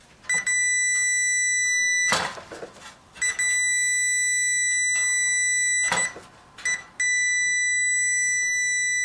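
A multimeter's continuity beeper sounding a steady high beep three times, each lasting about two seconds, with short clicks of the probe and clips in between. The beep signals that the stretch of dryer heating-element coil between the probes is unbroken.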